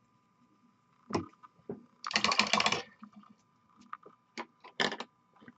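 Hobby paint bottles handled on the bench: several sharp clicks and, about two seconds in, a brief rapid rattle lasting under a second.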